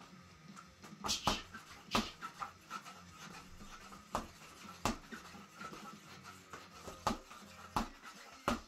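Boxing gloves punching a homemade spring-stem reflex bag: about eight sharp hits at an uneven pace, some in quick pairs.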